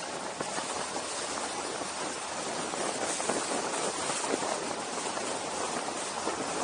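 Wind rushing over the microphone on a fast downhill ride: a steady rushing noise full of small crackles from gusts, growing slightly louder toward the end.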